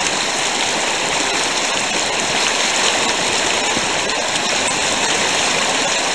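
River water pouring over one open section of a low concrete dam and rushing through the rapids below: a steady, loud rush.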